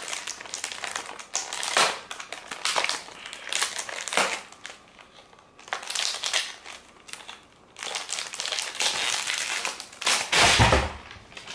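Crinkling and tearing of a Dove beauty bar multipack's wrapping as it is opened by hand, in irregular bursts with two short lulls, and a louder thump near the end.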